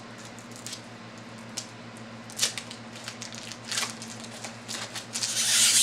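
A trading-card pack being handled, with scattered crinkles, and its wrapper torn open in one longer rip near the end, over a steady electrical hum.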